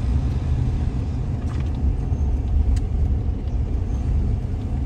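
City street ambience: a heavy, steady low rumble of road traffic and wind buffeting the microphone.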